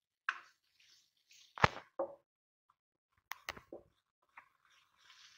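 Plastic spatula knocking and scraping against a nonstick karahi as garlic-ginger paste is stirred while it fries in a little oil to light brown. There are a few sharp knocks, the loudest about a second and a half in, with a faint sizzling hiss between them.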